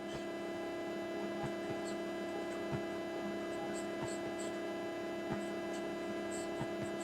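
A steady low drone of several held tones at constant pitch, with a few faint clicks scattered through it.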